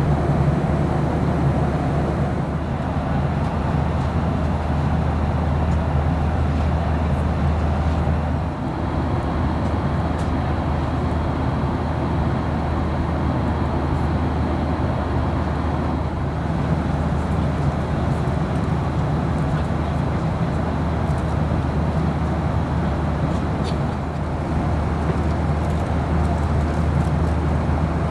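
Steady in-flight cabin noise of a Boeing 737-800: the constant drone of the engines and rushing air, strongest in the low range.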